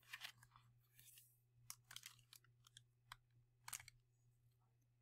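Near silence, broken by a few faint crackles and paper rustles as the page of a hardcover picture book is turned, the loudest about four seconds in.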